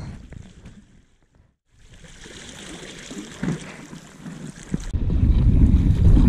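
Wind on the microphone over small waves washing against a rocky shore, with a brief dropout about a second in; a few seconds later the wind rumble on the microphone gets much louder.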